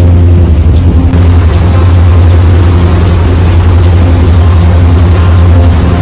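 Passenger ferry under way: its engines give a steady low drone with a constant rush above it.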